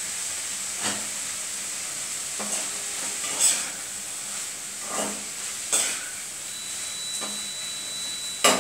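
Cauliflower pieces sizzling in hot oil in a pan while a spatula stirs them, scraping the pan in short strokes every second or so over a steady hiss.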